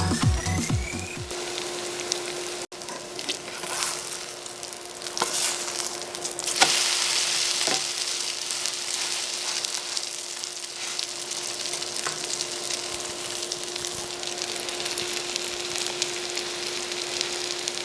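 Zucchini-and-egg batter (aehobak-jeon) sizzling in hot oil in a frying pan, a steady hiss with a few sharp knocks a few seconds in, over a steady low hum.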